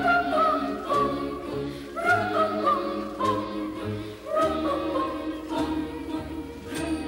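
A choir singing a slow melody of long, held notes over short low notes that repeat about every half second.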